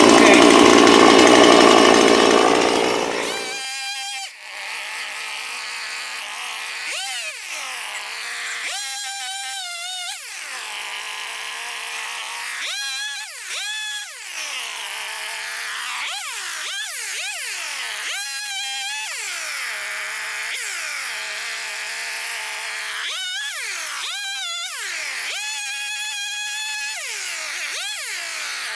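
Two-stroke Husqvarna chainsaw running at full throttle, then about four seconds in it turns thinner and quieter, its engine revving up and falling back again and again, each rev a rising then falling whine.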